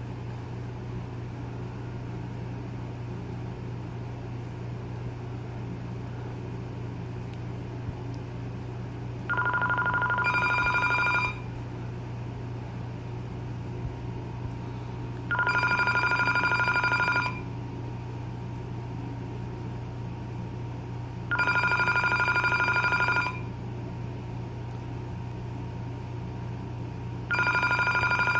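Vtech IA5854 5.8 GHz cordless phone ringing with its electronic ringer for an incoming call. After about nine seconds of steady low hum, four rings of about two seconds each come one every six seconds. This is the usual two-seconds-on, four-off ring pattern.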